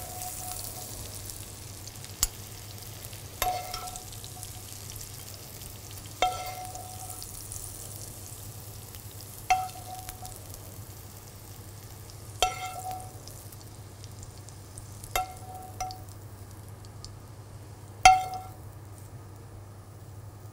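Oil sizzling in a hot frying pan of sautéed squash, thinning out towards the end. About every three seconds a metal utensil clinks on the cookware with a short ring as the squash is lifted out, the loudest clink about 18 seconds in.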